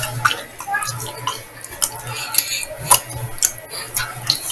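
Clatter of kitchen utensils against dishes: a string of sharp clicks and scrapes over a low steady hum.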